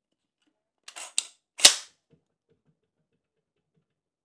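AR-15 fire-control group being dry-fired: sharp metallic clicks of a Timney trigger breaking and the hammer snapping forward. A quick cluster of three clicks comes about a second in, followed by the loudest single snap, then a few faint small knocks.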